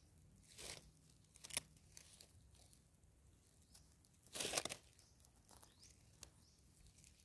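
Gloved fingers scraping and raking through dry, crumbly soil in a few short scratchy bursts. The longest burst comes about four and a half seconds in.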